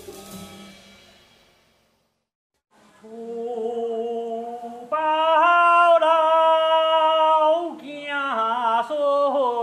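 Earlier music fades out, a brief silence follows, then a voice begins singing a slow Chinese song in long held notes, with lyrics about homes surrounding the building and virtuous children.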